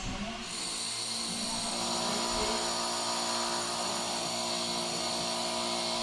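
Kyowa toaster oven running with its rotisserie turning: a steady motor hum and whine under a hiss, stepping up in level about half a second in.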